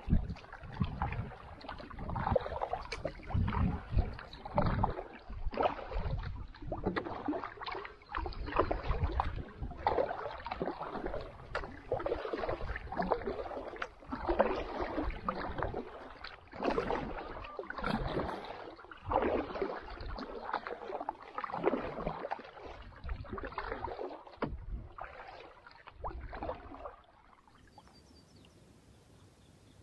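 Double-bladed paddle strokes dipping and pulling through calm water beside a solo pack canoe, one swish about every second, with drips off the blades. The strokes stop near the end, leaving near quiet.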